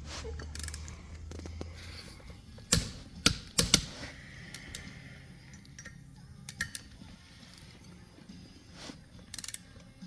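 Hand tools working the rear sprocket bolts while they are torqued to 47 ft-lb: a scattered series of sharp metallic clicks and knocks, the loudest few close together about three seconds in.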